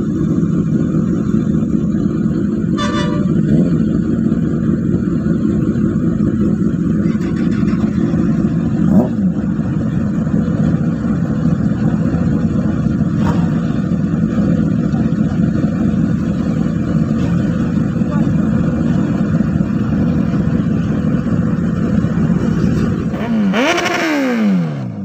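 Several sport motorcycle engines running together at idle, a steady low rumble. A short horn toot comes about three seconds in. Near the end one engine's note sweeps sharply in pitch as it is revved.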